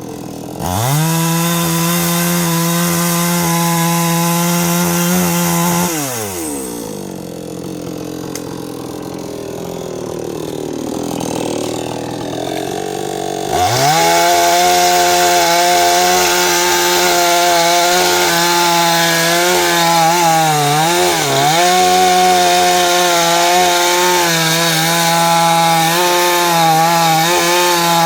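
Two-stroke chainsaw revved to full throttle and held there. About six seconds in it drops back to idle for several seconds, then it revs up again and stays at high speed to the end, with brief dips in pitch about twenty seconds in as the chain cuts into the wood.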